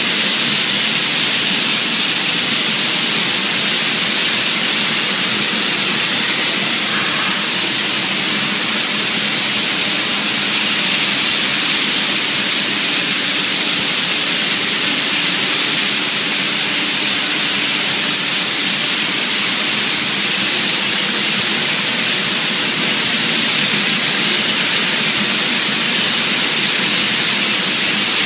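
Steady loud hiss of an automatic spray painting line's pneumatic spray guns atomizing paint, with a faint machine hum underneath.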